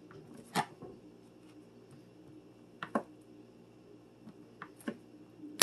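Large kitchen knife slicing through a block of cheese and knocking down onto a plastic cutting board: a few separate knocks a second or two apart, the loudest at the end.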